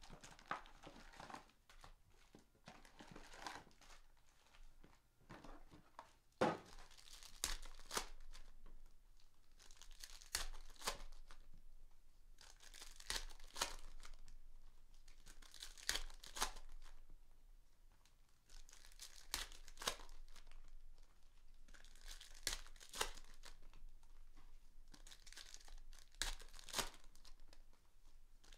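Packs of basketball trading cards being torn open, with their wrappers crinkling, in a run of rough tearing bursts every couple of seconds. There is a single sharper knock about six seconds in.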